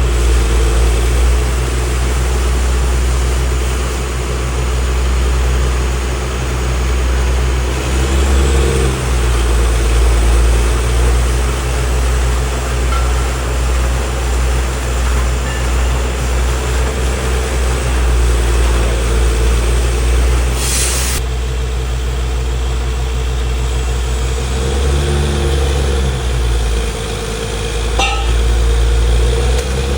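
Borewell drilling rig's heavy engine running, a steady low drone. Its pitch shifts briefly about a quarter of the way in and again near the end, and there is a short hiss about two-thirds through.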